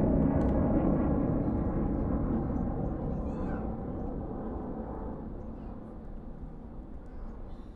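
Distant military jet engine noise, a deep broad rumble heard from about 2 km away, fading steadily as the aircraft moves off.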